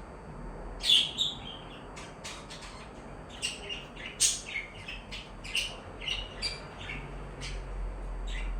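Budgerigars and lovebirds chirping: short, irregular high chirps, loudest about a second in and again about four seconds in.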